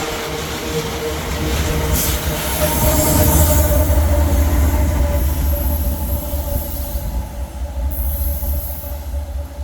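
Loaded iron-ore train's wagons rolling past with a heavy, steady low rumble. Steel wheels squeal against the rails in thin high-pitched tones that come and go over it.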